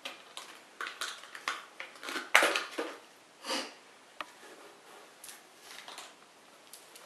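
Plastic lure packaging being handled, crackling and rustling irregularly as a twist tie is worked loose, loudest about two and a half seconds in.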